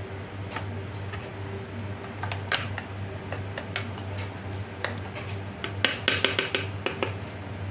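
Wooden spoon scraping and knocking against a plastic food processor bowl as cooked millet is pushed down around the blade stem. Scattered light knocks, coming thick and fast about six seconds in, over a steady low hum.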